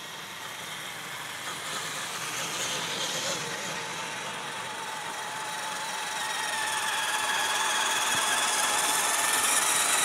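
Several electric radio-controlled scale off-road trucks driving in a line, their motors and gearboxes whining at a few steady pitches. The whine grows louder about two thirds of the way through as the trucks come close.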